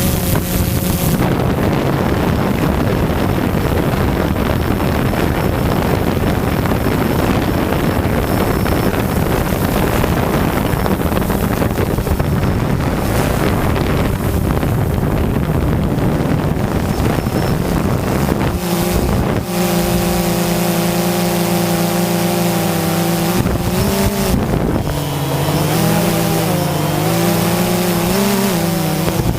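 DJI Phantom 2 quadcopter's motors and propellers in flight, buried under heavy wind noise on the microphone for most of it. About two-thirds of the way through the wind drops away and the motors' steady, multi-tone hum comes through clearly, shifting pitch a few times near the end.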